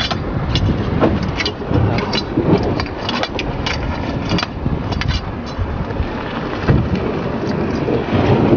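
Heavy rain and wind buffeting the microphone: a steady low rumble with frequent sharp taps and clicks.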